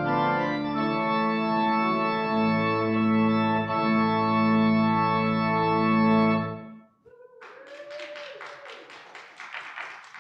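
Organ playing long sustained chords as the service's closing music, cutting off about seven seconds in. Soon after, quieter clapping follows, several claps a second.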